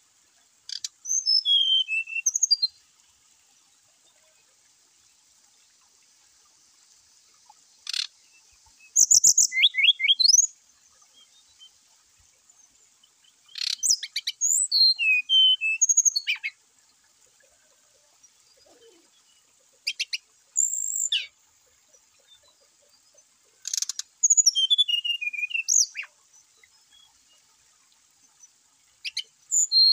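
Brown-chested jungle flycatcher singing: six short phrases of high, quick, sweeping and warbled notes, each one to three seconds long, with pauses of a few seconds between them.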